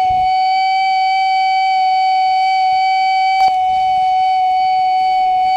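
Car parking sensor buzzer sounding one continuous, unbroken tone, the warning that an obstacle is at the closest range. A single click about three and a half seconds in.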